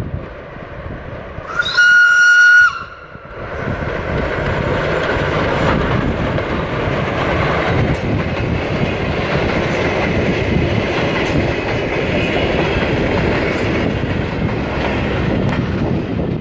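A steam locomotive's whistle gives one steady blast of about a second. Then the steam train runs past close by, a loud, dense noise of locomotive and carriages with sharp wheel clicks over the rail joints.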